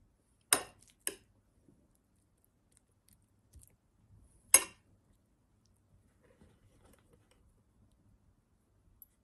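Metal spoon clicking sharply against the wooden board while scraping tuna filling onto pastry: two clicks close together about half a second in, a louder third one around the middle. Faint soft handling of the pastry near the end.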